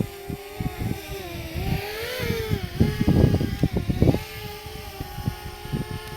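DJI Mavic Mini drone's propellers humming in flight, the pitch rising and falling back about two seconds in as it manoeuvres. Irregular low crackling rumbles sit under it, loudest around three to four seconds in.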